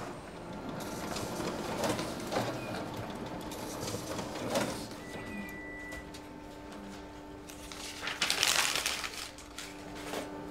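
Office printer-copier running and feeding out pages: mechanical whirring with clicks, a brief high beep about halfway through, and a louder rush of paper feed about eight seconds in.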